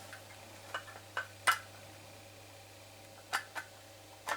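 About six short, sharp clicks and taps of small plastic parts being handled as a vehicle control unit is fitted back together, the loudest about a second and a half in, over a faint steady low hum.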